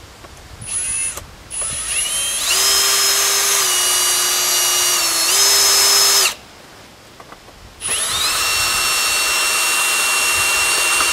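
Power drill backing screws out of wooden concrete form boards: two brief spin-ups, then a steady high whine for about four seconds with a short dip in pitch under load, and after a pause a second run starting about eight seconds in.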